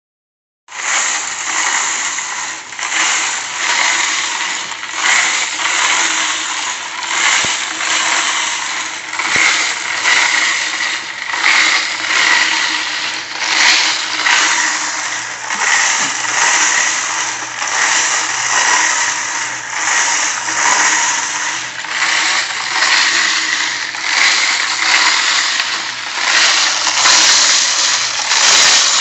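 Homemade rotary wet tumbler running: brass cases and water sloshing and clattering inside the turning drum, over the drive rollers and motor. The rattle swells and fades about once a second.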